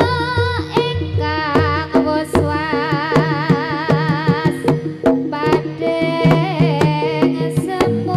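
Live jaranan gamelan music: sharp hand-drum strokes over steady ringing gong-chime tones, with a high melody that wavers up and down in pitch, accompanying a kucingan dance.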